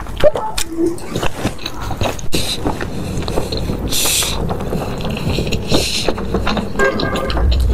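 Close-miked eating sounds: chewing with many small wet clicks, and two short hissing bursts about four and six seconds in.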